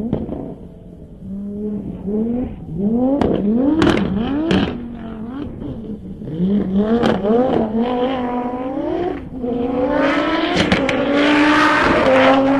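Super F1000 Nissan Micra rally car's engine, heard from inside the car, revving hard. Its pitch climbs and drops back again and again as it shifts through the gears, and it is held high and loud near the end. Sharp clicks and knocks are heard here and there.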